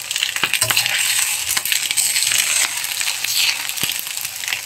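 Leftover rice stir-frying in a wok: a steady sizzling hiss, with a metal spatula repeatedly scraping and clicking against the pan as the rice is tossed.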